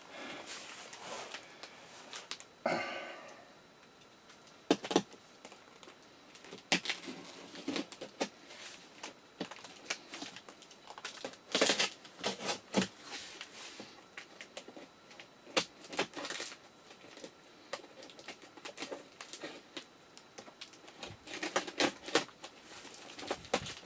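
A cardboard box holding a compressed mattress being opened and handled: irregular knocks and clicks with rustling, tearing and crinkling of the packaging.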